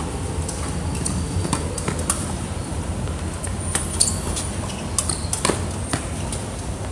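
Tennis rally on an outdoor hard court: sharp pops of racket strikes and ball bounces every second or so, with a few short high shoe squeaks, over a steady low rumble.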